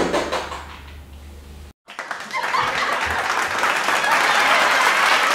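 A short stretch of low hum, cut off just before two seconds in, then applause from a crowd with some cheering, swelling over the next couple of seconds and holding steady.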